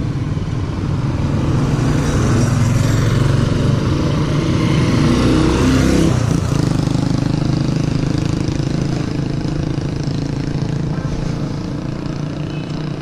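Small motorcycle engine of a tricycle (motorcycle with sidecar) running as it rides up and passes close by, loudest about halfway through and fading toward the end.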